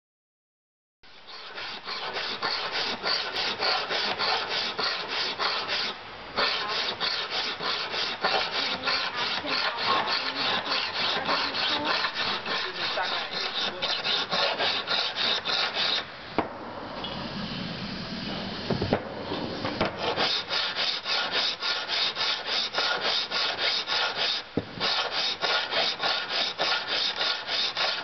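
Flat steel pottery trimming blade being sharpened by hand, scraped back and forth across a rough stone slab in quick, even strokes. The rasping starts about a second in, and there is a softer stretch of a few seconds past the middle.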